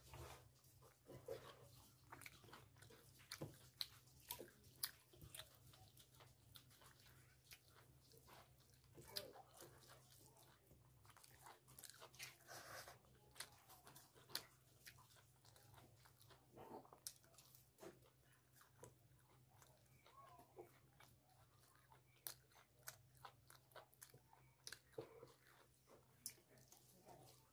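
Faint close-up eating sounds of a man eating chicken curry and rice by hand: chewing and biting with many short wet mouth clicks and smacks, and fingers working the curry-soaked rice on a steel plate.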